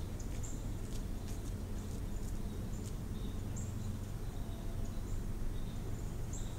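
Insects chirping outdoors, short high chirps recurring about every half second, over a steady low rumble.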